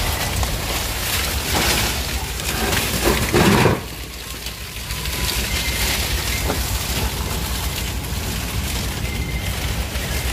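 Palm fronds rustling and scraping along the deck, roof and gunwales of a cargo boat pushing through an overgrown canal, with the boat's engine running low underneath. The scraping is loudest about three and a half seconds in, then eases off.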